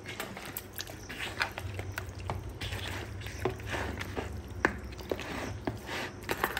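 Bare hands mixing and squeezing raw chicken pieces in a thick curd-and-spice marinade in a bowl: wet squelching with many irregular sticky smacks and clicks.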